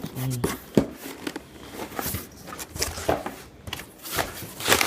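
A cardboard package being opened by hand: cardboard and paper rustling and crinkling in irregular bursts, with scattered sharp clicks and taps.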